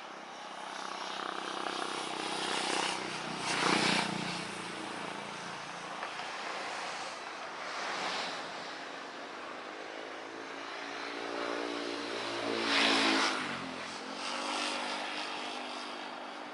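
Road traffic going by close, several vehicles one after another, each swelling and fading. The loudest passes about 13 seconds in, its engine pitch dropping as it goes by.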